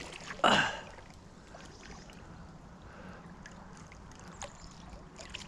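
Water splashing and lapping as a hooked carp is played at close range and drawn in to be landed, with one short, louder burst about half a second in.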